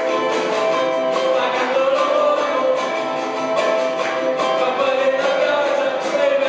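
Ukulele ensemble strumming a song with a drum kit keeping a steady beat and a group of voices singing along.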